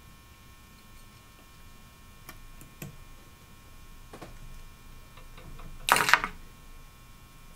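Faint scattered clicks of a wire whip finish tool and tying thread being worked at the head of a fly on the vise, followed about six seconds in by a short, louder rustling burst.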